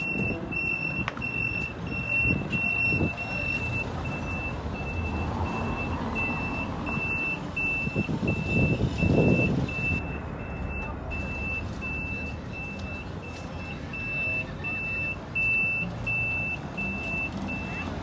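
Vehicle reversing alarm beeping steadily, about twice a second, stopping near the end, over the rumble of road traffic.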